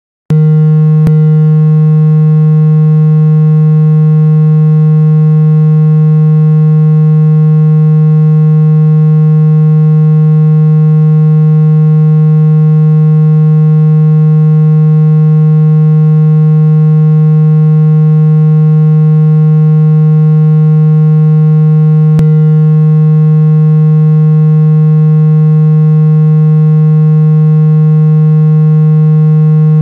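A loud, steady, low-pitched synthesized tone with a row of overtones, played as a water-ejection tone to shake water out of a phone speaker. It starts about a third of a second in and holds one unchanging pitch, broken only by a faint click about a second in and another a little after 22 seconds.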